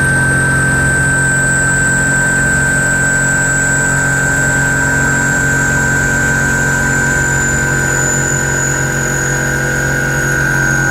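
Soviet 'Volna' semi-automatic washing machine's electric motor running, a steady hum with a high whine that slowly drops in pitch.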